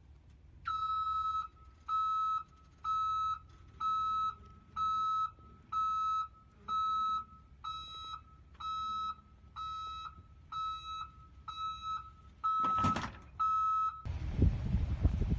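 Vehicle warning beeper sounding a steady high tone about once a second, some fourteen times, fading somewhat in the middle. A brief loud rush of noise breaks in near the end of the beeping.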